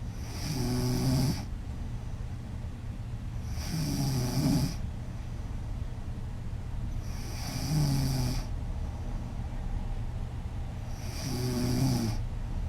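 A woman snoring: four snores, one about every three and a half seconds, each lasting about a second.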